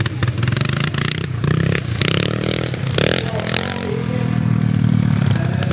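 Vintage scrambles motorcycles running along a grass track, engines pulling and changing pitch as they are ridden past, with some clattering over the engine note.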